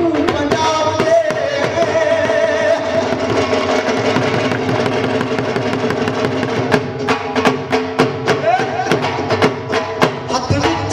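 Bhangra music playing loudly, with a voice over percussion. From about seven seconds in, sharp drum strokes in a quick, even rhythm stand out.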